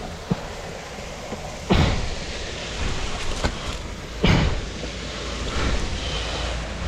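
Steady rushing noise of wind buffeting the microphone, with two heavy thumps, one about two seconds in and another about four seconds in.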